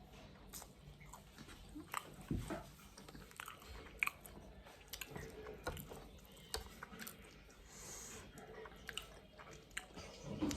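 A person biting and chewing food, with irregular sharp clicks from the mouth and food.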